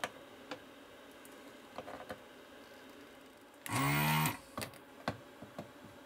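Faint, scattered clicks and ticks of a soldering iron tip and solder working the joints on a circuit board, as fresh solder is added to old speaker-terminal joints. A louder sound lasting about half a second comes just under four seconds in.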